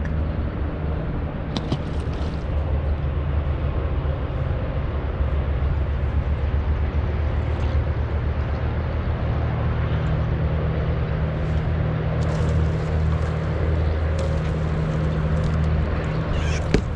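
A boat motor running steadily, a constant low hum with no change in pitch.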